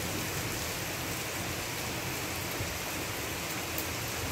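Rain pouring steadily onto a wet street, an even hiss.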